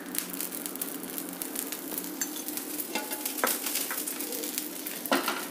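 Oil sizzling and crackling around an onion dosa frying on a hot tawa, just after a couple of spoonfuls of oil have been poured over it. A steady low hum runs underneath, with a few sharper pops in the second half.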